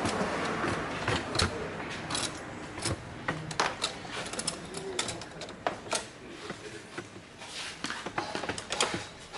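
Hand tools and metal engine parts clicking and clinking irregularly, with short runs of quick clicks, during hands-on disassembly work in an engine bay.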